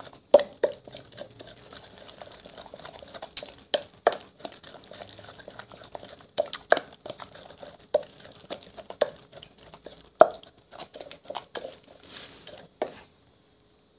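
Wooden pestle working a wet chilli dipping sauce in an earthenware mortar: sharp knocks against the clay with squelching, stirring sounds between. It stops suddenly near the end.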